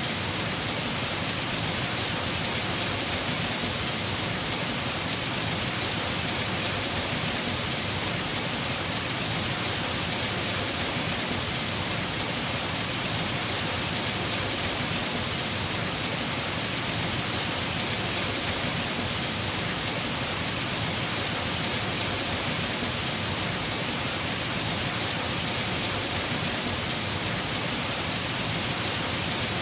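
Heavy rain falling steadily on a house roof, a dense, even hiss with no let-up.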